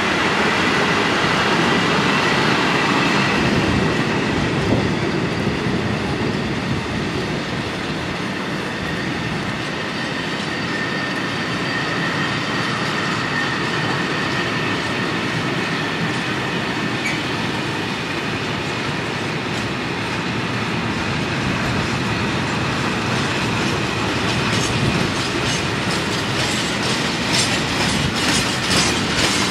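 Long freight train of covered wagons rolling past: a steady rumble and rattle of steel wheels on rail, with a faint high-pitched wheel squeal. Rhythmic clickety-clack of wheels over rail joints grows more distinct near the end.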